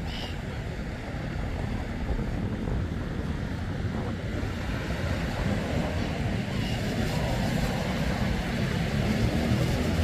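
Small sea waves breaking and washing up the beach in a steady wash, with wind rumbling on the microphone.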